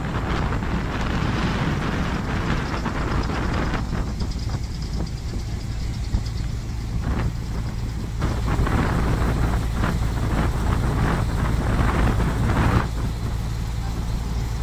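River ferry's engine running with a steady low drone. Wind gusts on the microphone, coming and going in uneven surges.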